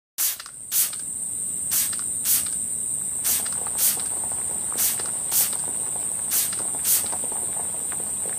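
Cartoon sound effects: a continuous high-pitched insect-like trill, with short sharp spray-bottle spritzes coming in pairs about every second and a half.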